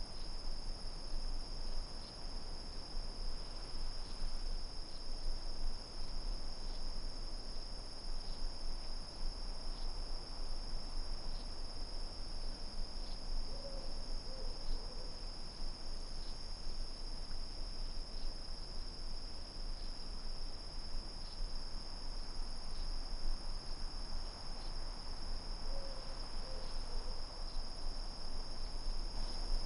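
Crickets chirring in a steady, unbroken high-pitched chorus. About halfway through and again near the end, a few short, lower calls from another animal sound briefly.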